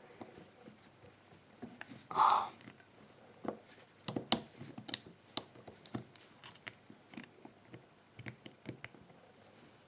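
Small metal tools and lock parts handled on a work surface: a string of light, irregular clicks and clinks, with one short louder sound about two seconds in.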